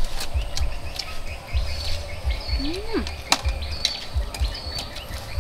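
Clicks and small scrapes of people eating with a spoon and their fingers, with birds chirping in the background and a low rumble that comes and goes.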